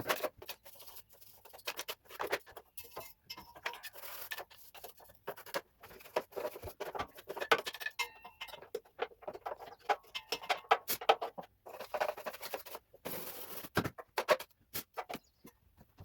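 Irregular light clicks, taps and scrapes of hands working on the zero-turn mower's parts, with no motor running.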